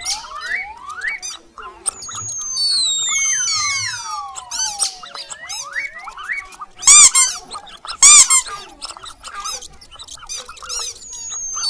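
Mouse squeak sound effects: a busy run of high, rapid squeaks and chirps, mixed with long whistles that slide down and then up in pitch. Two loud bursts of squeaking come about seven and eight seconds in.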